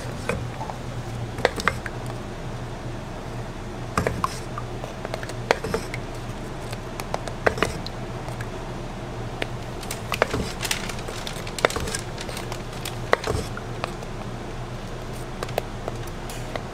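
Kitchen utensils clinking and knocking against a metal pot while chocolate is ladled over a waffle: scattered sharp clicks a second or more apart, over a steady low hum.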